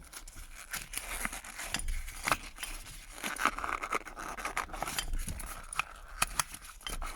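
A rubber shifter boot being worked up and off a gear lever by hand: irregular scraping and rubbing with small clicks.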